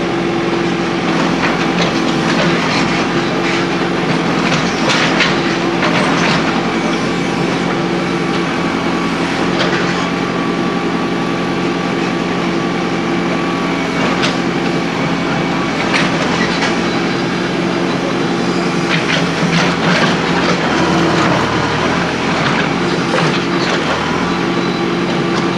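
Engine-driven compactor running steadily while compacting fill in the road repair, with a constant engine hum and scattered sharp clanks every few seconds.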